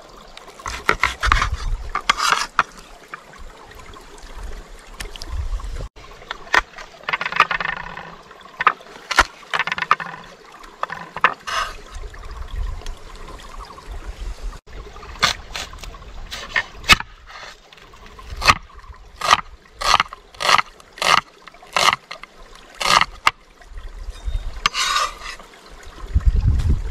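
Water trickling and splashing, with rubbing and scraping handling sounds and a run of sharp knocks, typical of food being washed and prepared by hand.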